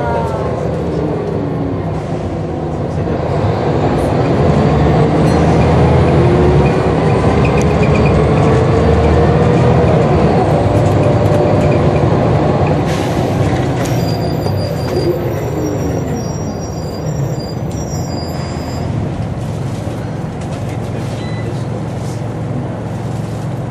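Scania L94UB bus heard from inside the saloon, its engine pulling and ZF automatic gearbox whining with a pitch that climbs as the bus accelerates. The pitch falls and the sound eases off as it slows later on.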